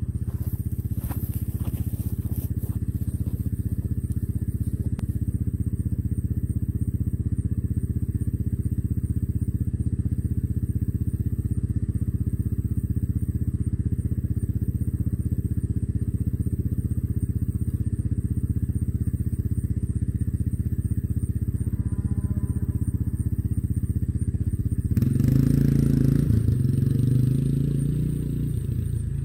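All-terrain vehicle (quad bike) engine running at a steady idle. About 25 seconds in it revs up as the quad pulls away.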